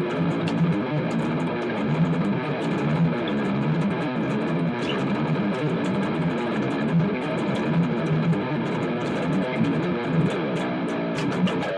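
Guitar music: quick plucked and strummed notes moving up and down, with thin, poor-quality sound.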